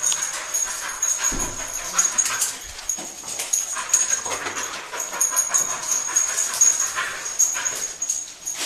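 A cadaver-search dog, an English springer spaniel, sniffing and breathing in short irregular puffs as it works, with a couple of low thumps early on. A steady high-pitched whine runs behind it.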